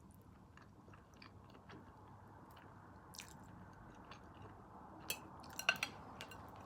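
A person chewing spaghetti softly, with faint mouth clicks and a few sharper clicks about five to six seconds in.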